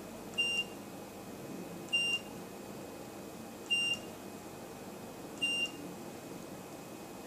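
Grandway FHM2A02 optical multimeter beeping at key presses: four short, high beeps, one about every 1.7 seconds. Each marks a press of the power meter's wavelength-selection key as it steps through the measurement wavelengths.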